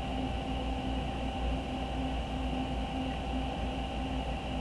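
Steady background hum and hiss of a small room, with faint steady whining tones and no other events.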